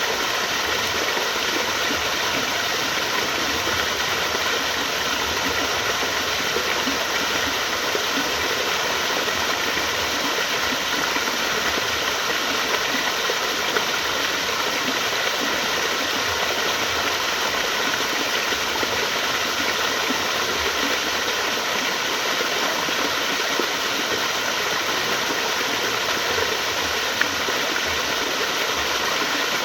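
Flowing water: a steady, unbroken rush like a stream or small waterfall.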